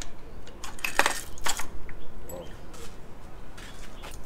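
Light metallic clicks and clinks of hand tools and loose engine parts during a motorcycle engine teardown, with a quick cluster of sharp clicks about a second in.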